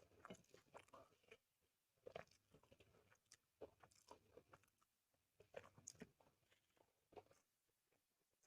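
Quiet, close-up chewing of a person eating: wet mouth clicks and smacks in irregular clusters, with short pauses between bites.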